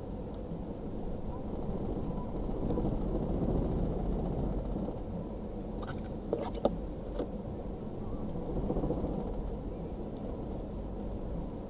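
Steady low vehicle rumble heard from inside a car stopped in highway traffic, swelling a little twice, with a few sharp clicks about six seconds in.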